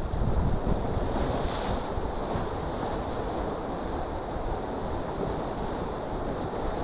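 Sea surf breaking and washing over coastal rocks, a steady rush of water, with wind buffeting the microphone.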